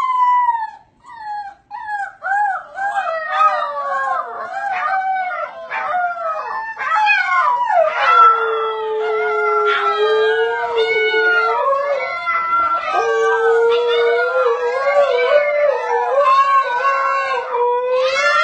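A mother husky and her puppies howling together, several wavering howls overlapping. Single howls at the start build into a chorus about two seconds in, and from about eight seconds one long, steady, lower howl holds under the puppies' higher voices.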